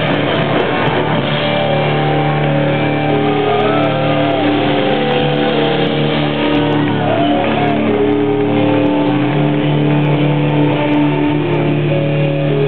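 A rock band playing live and loud: electric guitar and keyboard synthesizer hold long, sustained notes and chords that change every second or two.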